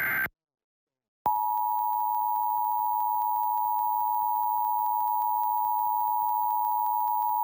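Emergency Alert System test: the last of the three SAME digital header bursts, a short buzzy run of data tones, ends just after the start. After about a second of silence the EAS attention signal, a steady two-tone beep of 853 and 960 Hz, begins and holds.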